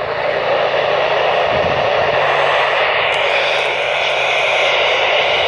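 Loud, steady radio static hissing over a NOAA Weather Radio broadcast and drowning out the announcer's voice, the sign of a weak or fading signal. A few faint clicks come through about three seconds in.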